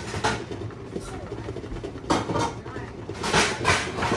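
Metal pot lids clanking and scraping against each other as they are sorted through to find one that fits, in several short bursts of clatter, the loudest about two seconds in and again shortly before the end.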